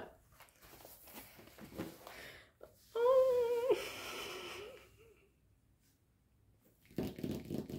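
A diamond painting canvas rustling as it is turned over, then a woman's short hummed "mmm" about three seconds in, followed by a breathy exhale. Faint rustling again near the end.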